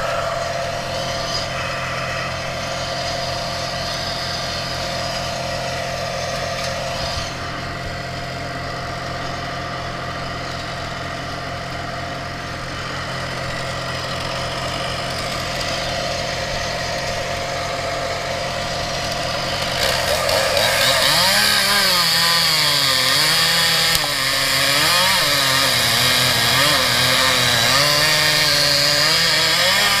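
Steady engine drone, then about two-thirds of the way in a chainsaw comes up louder, its engine pitch rising and dipping over and over as it cuts through wood.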